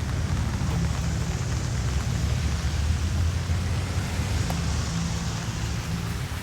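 Steady rain hiss over a constant low rumble.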